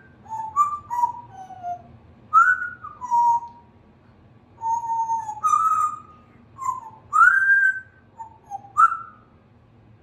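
A Congo African grey parrot whistling a string of about a dozen short notes, several sliding down in pitch, with brief pauses between them.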